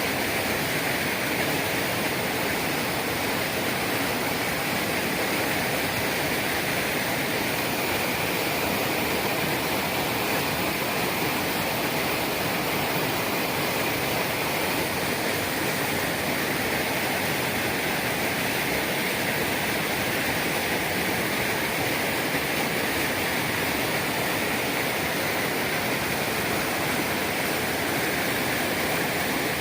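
A steady rushing noise at an even level, with a continuous high drone running through it.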